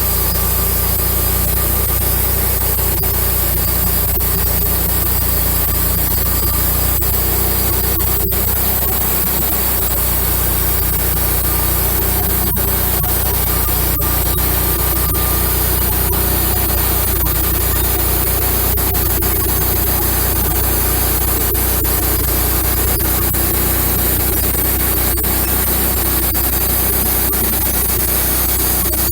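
Wood-Mizer LX150 bandsaw mill running steadily under load, its engine and band blade sawing a 4-inch slab off an oak cant.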